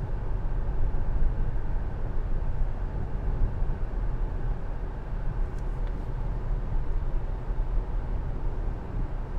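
Car cabin noise while driving on a wet road: a steady low rumble of tyres on wet pavement and the engine, with two faint ticks about halfway through.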